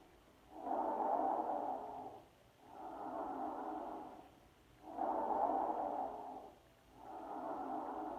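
Recorded tracheal breath sounds heard through a stethoscope over the neck: loud, blowing breath noise in four phases of about a second and a half each, alternating stronger and softer, with a short pause between each phase. This is the normal tracheal sound, described as intense and blowing.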